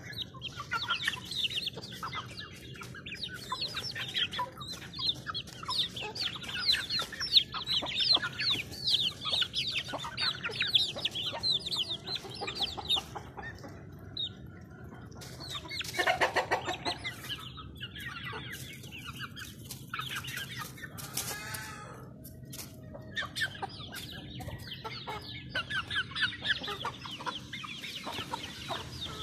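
Flock of young chickens clucking and chirping in quick, overlapping calls as they peck at grain, with one louder, longer call about halfway through.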